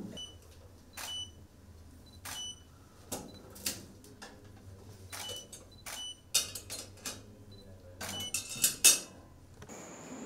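A string of sharp clicks and clinks at irregular intervals, some in quick runs, several with a brief high ring after them. A steady high whine starts near the end.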